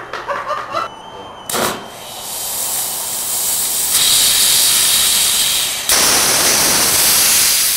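Small experimental rocket motor firing on a static test stand: a sharp pop about a second and a half in, then a hissing burn that builds over a couple of seconds and runs loud and steady, with a brief break near six seconds.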